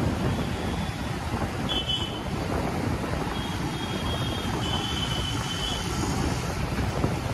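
Steady rush of road and traffic noise from a motorbike riding through city traffic. A few faint, short high tones come through about two seconds in and again in the middle.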